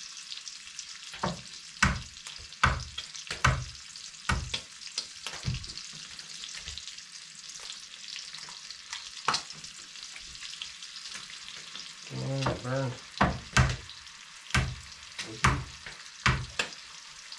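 Bacon sizzling in a cast-iron skillet: a steady frying hiss broken by frequent sharp clicks and knocks of a utensil working the pan.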